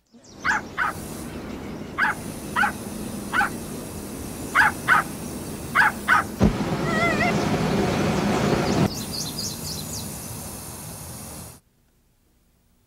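A puppy yapping, about nine short barks, then a sudden loud whoosh of an aerosol can sprayed through a flame as an improvised flamethrower, lasting about two and a half seconds. The sound cuts off abruptly near the end.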